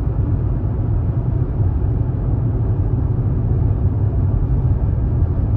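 Steady low road and tyre rumble inside the cabin of a 2022 Hyundai Ioniq 5 electric car cruising at about 60 mph, with no engine sound.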